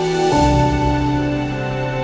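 Background music: slow, held chords that change about a third of a second in, with a soft cymbal-like swell at the change.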